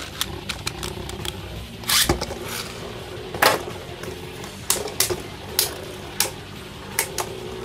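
Two Beyblade Burst spinning tops, a custom 3D-printed bey and Lord Spriggan, whirring on a plastic stadium floor, with sharp clacks about once a second as they collide and a heavier knock about two seconds in.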